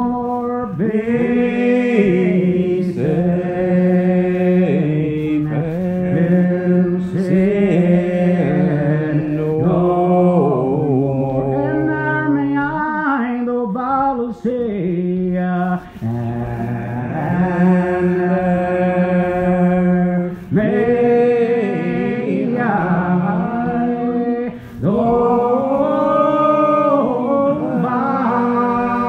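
Slow unaccompanied hymn singing, long drawn-out notes that move slowly from pitch to pitch, with brief breaks between phrases.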